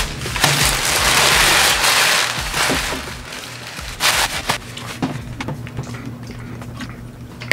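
Paper sandwich wrapper being crumpled and crinkled by hand, loudest in the first two and a half seconds with another short crinkle about four seconds in, over background music.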